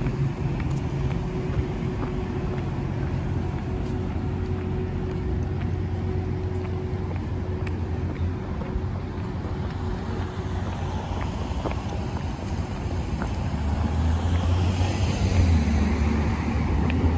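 Street traffic: cars running along a downtown street with a steady low hum, getting louder near the end as a vehicle passes close.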